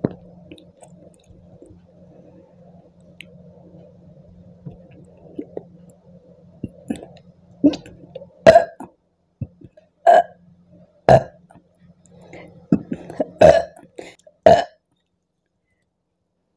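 A woman burping repeatedly, the burps brought up by a fizzy apple drink: a few small ones, then about six loud short burps in the second half, with smaller ones between them.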